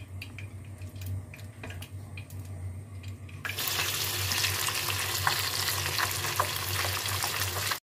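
Light clicks and handling noise from flour-dredged fish fillets being handled in a bowl. About three and a half seconds in, this gives way abruptly to the fish deep-frying in hot oil in a pot: a dense, steady sizzle with crackles.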